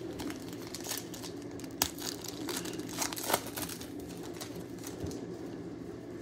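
Trading-card pack wrappers crinkling and tearing open by hand, with a few sharp crackles.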